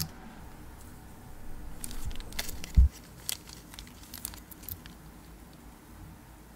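Clear plastic film crinkling and small clicks as a hand-operated watch crystal press is handled, with one dull thump a little under three seconds in.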